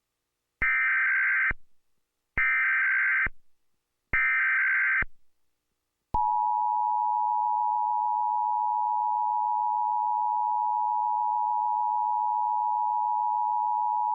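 Emergency Alert System tones: three short, buzzy bursts of SAME digital header data, then about six seconds in the steady two-tone EAS attention signal (853 and 960 Hz together). They open a coordinated monthly test of the alert system.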